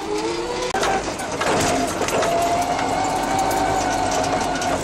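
Forklift running as it drives, a steady whine over a noisy rumble. The whine rises in pitch over the first second, breaks off sharply for an instant just under a second in, then carries on steady.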